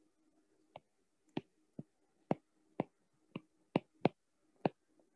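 A stylus tapping sharply on a tablet's glass screen as words are handwritten: about ten quick taps at irregular intervals.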